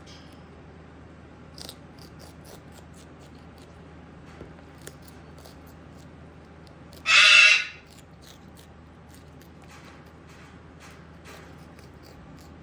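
Moluccan cockatoo giving one short, harsh squawk about seven seconds in, with faint scattered clicks from its beak crunching and scraping sweet pepper before and after.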